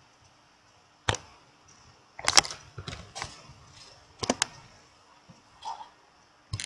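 Scattered sharp clicks of a computer mouse and keyboard: a single click about a second in, a quick run of keystrokes between two and three seconds, a close pair of clicks a little after four seconds, and another click near the end.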